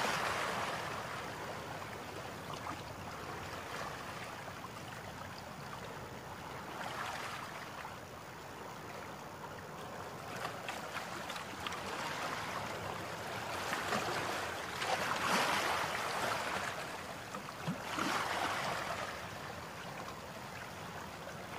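Water washing and splashing against the hull of a small boat moving along a river, a steady wash that swells louder every few seconds.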